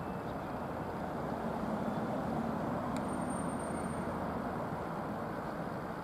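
DE10 diesel-hydraulic locomotive's V12 diesel engine running as it moves slowly through the yard: a steady low rumble. A sharp click comes about three seconds in, followed by a thin high whine for about a second.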